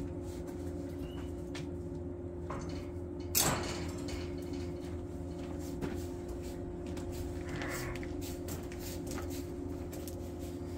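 A steady hum with a few fixed tones, with one brief clatter about three and a half seconds in and a few faint clicks after it.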